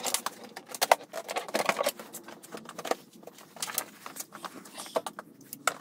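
Plastic scooter body parts being handled and pressed into place by hand: the underseat storage bin and panels give irregular clicks, knocks and rustling.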